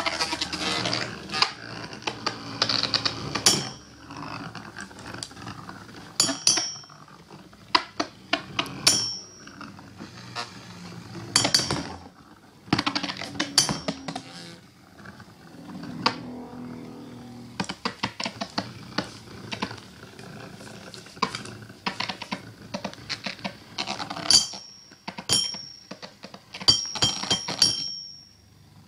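Two Beyblade spinning tops clashing against each other and the rim of a homemade cardboard stadium: sharp metallic clinks in irregular clusters, some ringing briefly, with quieter spinning between the hits.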